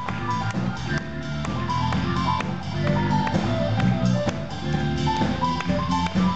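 Live band music with a drum kit: short melody notes over held low notes, with sharp drum hits throughout.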